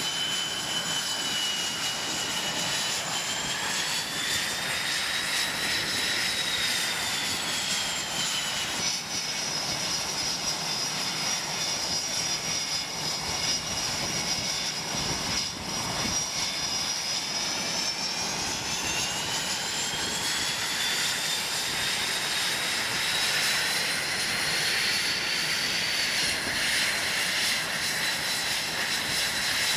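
Jet aircraft engines running steadily: a constant rushing noise with high-pitched turbine whines that drift slowly up and down in pitch.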